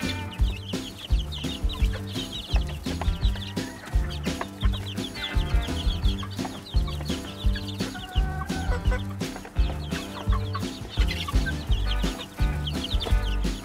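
Young grey gamefowl chicks peeping continually, many short high chirps overlapping, over background music with a steady beat and sustained bass notes.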